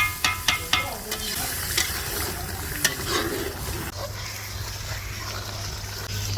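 Rost frying in a pot with a steady sizzle while a metal spatula stirs it. Several quick clinks of metal on the pot come in the first second, with a few single knocks after that.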